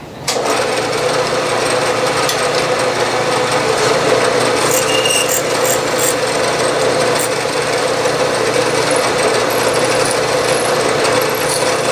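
A Bridgeport milling machine's spindle running with a twist drill feeding down into a small brass pipe fitting, drilling to depth. The sound starts abruptly at the outset, then holds as a steady hum with a steady tone.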